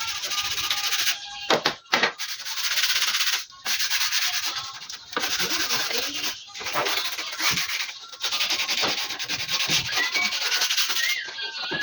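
Hand sanding a part by rubbing abrasive back and forth in long rasping strokes, each a second or more long, with brief pauses between them.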